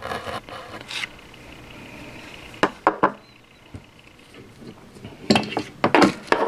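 Felt tip of a flux pen rubbing on the circuit board's pads, then a few sharp clicks and, near the end, a louder clatter of small hard tools being set down and picked up on the workbench.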